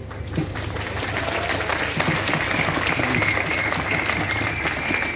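Crowd applauding: dense clapping that builds up about half a second in and then holds steady.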